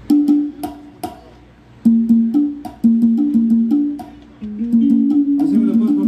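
Live band playing through the PA during a sound check: plucked electric guitar notes in short phrases with sharp percussion clicks on the beat. The phrases stop and start at first and run on more steadily from about two seconds in.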